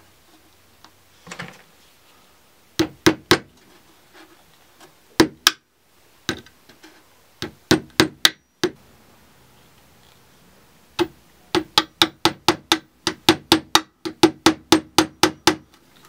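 Claw hammer driving a small nail (tack) into the timber roof of a birdhouse: a few scattered taps, then a quick even run of blows, about three a second, over the last five seconds.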